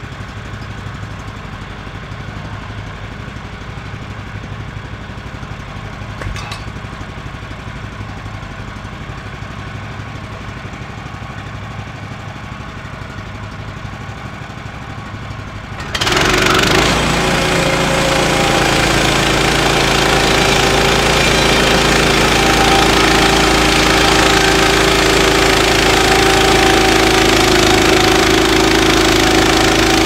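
Woodland Mills HM126 portable bandsaw mill's gas engine idling, then about halfway through suddenly throttling up to full speed, running loud and steady as the band blade saws along a log.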